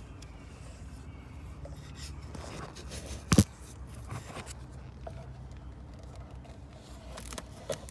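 Scraping and handling noises as a plastic bottle of transmission fluid is opened and worked with, over a low steady background rumble, with one sharp knock a little over three seconds in.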